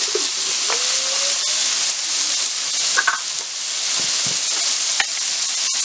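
Chopped ridge gourd and onion frying in hot oil, a steady sizzle, with a few faint clicks.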